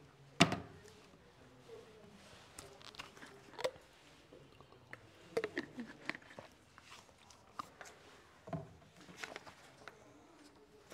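A sharp click about half a second in, then scattered small clicks and taps with a few faint murmurs in a quiet small room.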